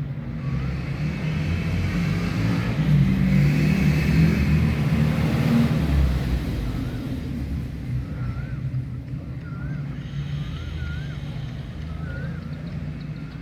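A motor vehicle's low engine rumble swells and then slowly fades, like a car passing. Through the second half, a bird repeats short wavy whistled notes.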